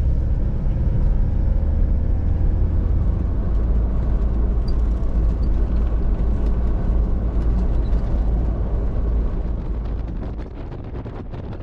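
Steady low road and engine rumble of a camper van cruising on an expressway, heard inside the cabin. The rumble drops off about ten seconds in.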